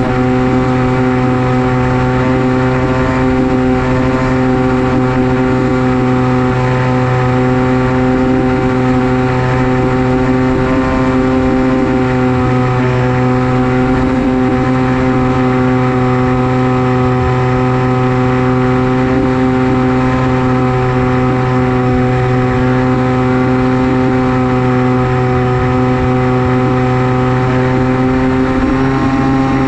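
Motor and propeller of an FPV flying wing running at a steady throttle: a loud, constant, even-pitched drone.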